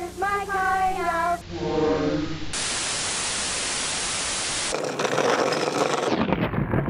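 An even static hiss, like white noise, lasting about two seconds in the middle. Before it comes a short snippet of a pitched voice over a low hum, and after it a rougher, crackling noise.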